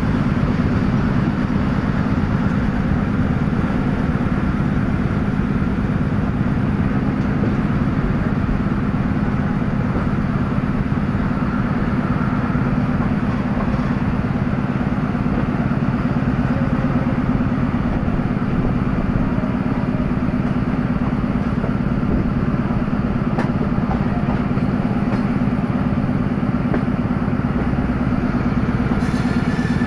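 Diesel-hauled passenger train heard from on board while under way: a steady, unbroken engine drone, with a brief noise near the end.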